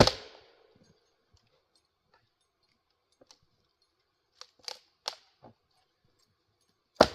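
A Velvicut Jersey splitting axe strikes firewood twice, about seven seconds apart. Each is a sharp, loud crack with a short ringing tail. Several lighter knocks of wood come in between.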